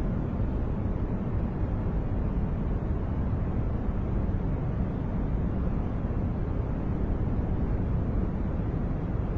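Continuous steady noise track with no changes or events, deep and muffled rather than hissy: most of its energy sits in the low end, closer to brown noise than to true white noise.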